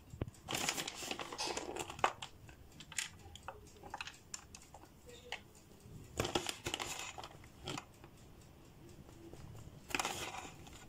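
Rustling and light clicks of grated cheese being handled and sprinkled by hand over food in a foil baking tray, in three spells of rustle with scattered ticks between them.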